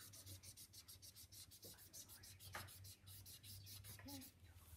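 Faint scratching of a felt-tip marker colouring on paper in quick back-and-forth strokes, about six a second, stopping shortly before the end.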